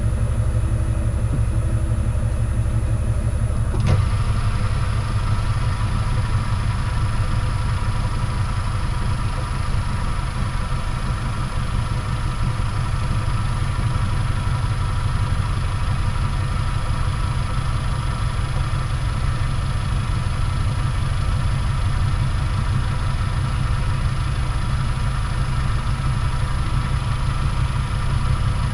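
Metalworking lathe running steadily under power while turning an aluminium ball handle, with a steady hum and whine. A click about four seconds in, after which the pitch of the whine changes.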